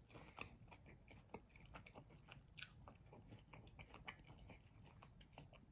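Faint, close-miked chewing of food: soft irregular mouth clicks and small crunches.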